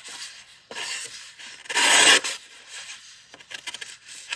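Pocket knife's Damascus steel blade slicing through a sheet of typing paper: two rasping cutting strokes, the louder one about two seconds in, followed by a few light clicks near the end.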